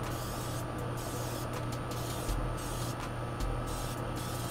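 Aerosol spray can of black removable coating hissing in a series of short bursts, laying down the first coat, over a steady low hum.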